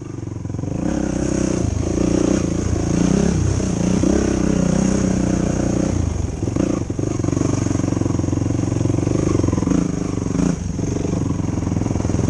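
2005 Yamaha YFZ450 ATV's single-cylinder four-stroke engine running under way on a trail. The revs rise and fall with the throttle, with brief let-offs a couple of times.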